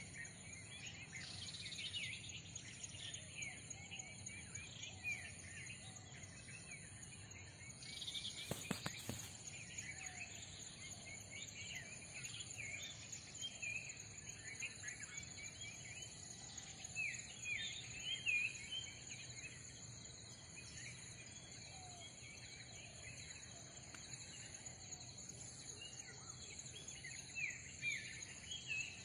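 Insects trilling steadily at several high pitches, with a faster pulsing chirp above them, and many short falling bird chirps throughout. There is one brief knock about nine seconds in.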